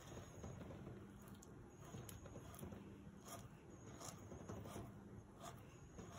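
Faint, unevenly spaced scrapes of a kitchen knife scoring the skin of a duck breast in a crosshatch on a wooden cutting board.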